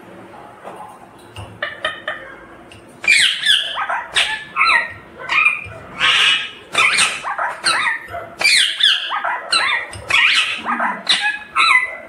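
Rose-ringed parakeet calling in a rapid run of loud, short squawks that bend in pitch, starting about three seconds in.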